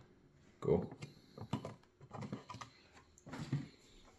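A few light, scattered clicks and taps of puzzle-box parts being handled as a freed compartment is opened and the last piece is taken out.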